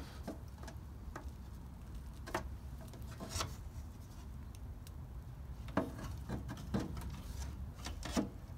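A cardboard template being slid and pressed into place behind a car's front bumper: scattered sharp taps and scrapes of cardboard against the bumper and its mounts, over a low steady rumble.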